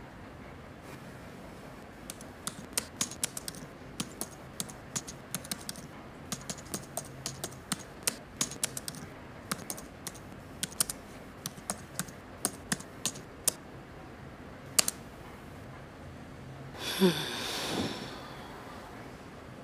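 Typing on a MacBook laptop keyboard: irregular key clicks in short runs, stopping about two-thirds of the way through, followed by a single louder key press. Near the end, a short breathy sigh.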